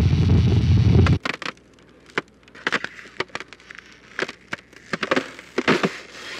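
A loud low rumbling noise that cuts off abruptly about a second in, followed by scattered sharp knocks and crackles.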